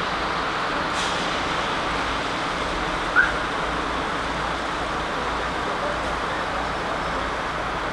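Steady rushing noise of city street traffic, with one short faint chirp about three seconds in.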